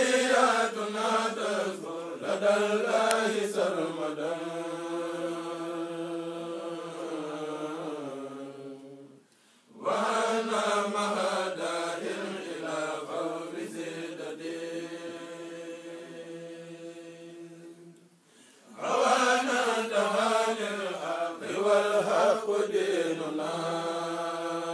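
Men's voices chanting a xassida, a Senegalese Sufi devotional poem, without instruments, in long sung phrases with held, ornamented notes. The chant breaks off briefly for breath about nine seconds in and again about eighteen seconds in.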